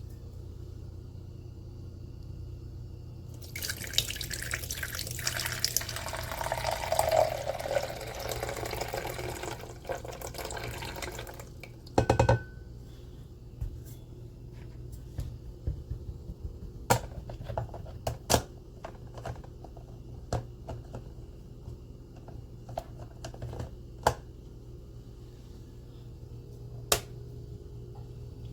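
Tap water running into a container for about seven seconds, then one sharp clunk and a scattered series of light clicks and taps of handling, over a steady low hum.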